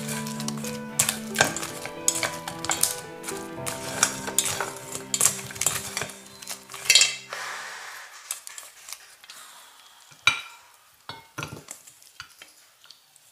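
Wooden chopsticks clicking and scraping against a stainless steel bowl as fried chicken pieces are tossed in sticky honey sauce, with the loudest clack about seven seconds in. Later come fewer, scattered taps as the chicken is pushed out of the tipped bowl.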